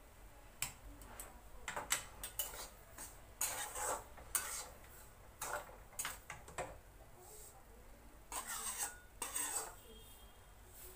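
A steel spatula scraping and stirring dry-roasted semolina in a metal kadai in short, irregular strokes, with metal clinks of the pan, pan tongs and a steel plate as the roasted rava is tipped out near the end.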